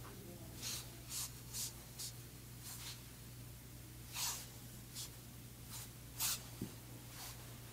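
Faint, irregular brushing and rustling of hands rubbing over a patient's back and clothing, about ten short rustles at uneven intervals, over a low steady hum, with one small tap near the end.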